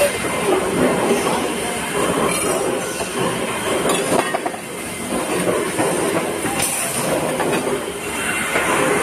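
Factory machinery running steadily with a dense clattering noise, broken by a few sharp metallic clicks.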